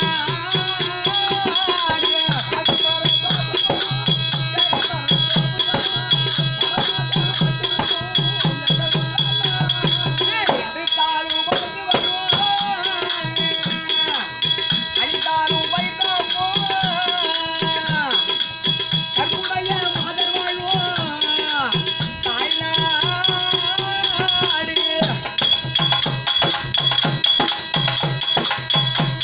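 Therukoothu street-theatre accompaniment: tabla drums beaten in a fast, driving rhythm with a harmonium holding steady notes and a wavering melody line over them, plus a constant rapid rattle.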